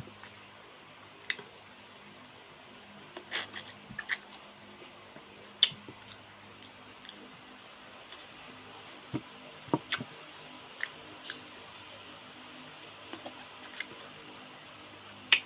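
Close-up eating sounds: scattered sharp wet clicks and smacks of the mouth and lips as a woman bites and chews mango slices, over a faint steady room hum.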